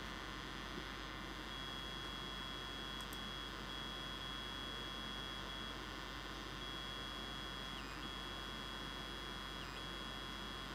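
Faint steady electronic whine, a thin high tone over low hum and hiss, that cuts out briefly now and then and dips in pitch twice near the end.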